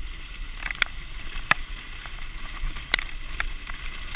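Dog sled runners sliding steadily over packed snow as the team pulls, with a few sharp clicks and knocks from the moving sled, the strongest about a second and a half and three seconds in.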